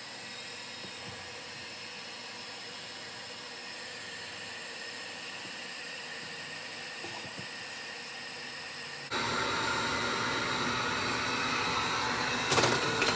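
Handheld hot-air blower running steadily while melting ice off RV freezer fins; about nine seconds in it gets suddenly louder, and near the end there are a few sharp knocks, like ice chunks dropping.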